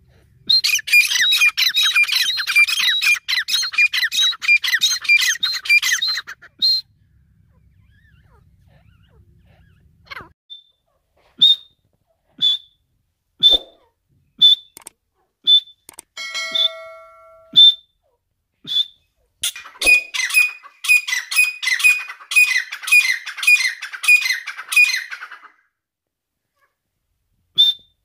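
Irani teetar partridges calling: a rapid run of chattering calls for about six seconds, then single short calls roughly once a second, then another rapid chattering run from about twenty seconds in.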